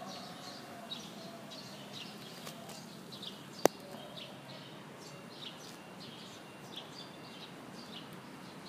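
Small birds chirping over and over in short, high calls, over a steady outdoor hiss. A single sharp click about three and a half seconds in stands out as the loudest sound.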